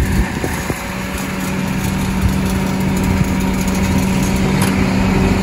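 Small hatchback car's engine running with a steady hum as it pulls up and stops, growing slowly louder.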